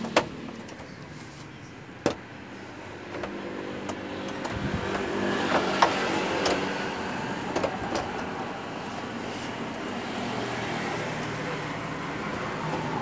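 A handful of sharp clicks and snaps, typical of the plastic latches on a screwless TV's back cover being pried loose with a homemade prying tool. Under them runs a steady background drone like a passing motor vehicle, swelling in the middle.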